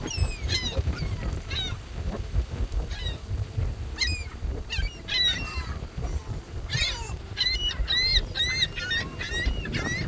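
Gulls calling: scattered short calls with rising and falling pitch, then a quick run of repeated calls, about three a second, from about seven seconds in.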